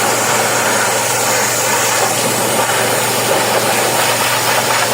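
Electric pressure washer running: a steady motor hum under the loud, even hiss of its high-pressure water jet.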